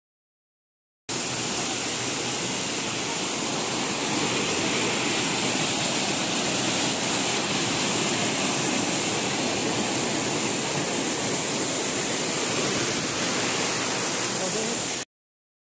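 Waterfall: falling water making a steady, even hiss that starts abruptly about a second in and cuts off suddenly near the end.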